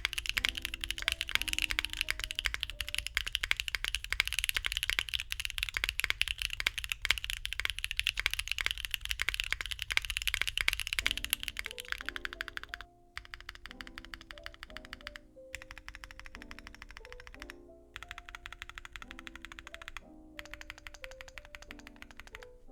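Fast typing on a mechanical keyboard with Bsun Raw tactile switches (55 g, medium bump) in a Neo60 Core with a carbon fiber plate, no foam and GMK keycaps: loud and crisp but not very clacky. The keystrokes come densely for about half the time, then thin out with brief pauses.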